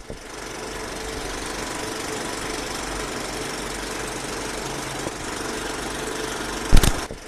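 Steady mechanical rattling noise, broken by a loud sudden thump near the end.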